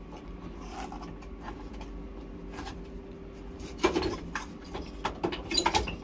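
Plastic clicks and knocks of a front-load washing machine's control panel being handled and fitted back into place, in two short clusters about four seconds in and near the end, over a low steady hum.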